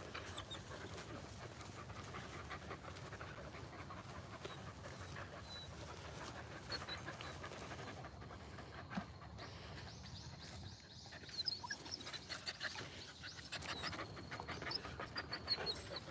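Medium poodles panting rapidly and steadily, with the panting getting louder and more uneven in the second half.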